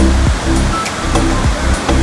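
Background music with a steady beat and deep bass notes, over the continuous rush of a large waterfall.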